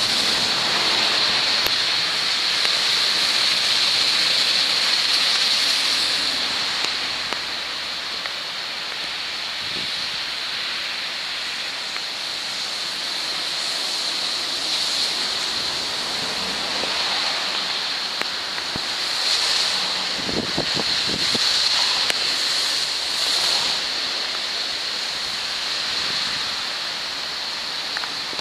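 The Bisenzio river in flood, its swollen water rushing in a steady, loud hiss. A few brief low bumps on the microphone about twenty seconds in.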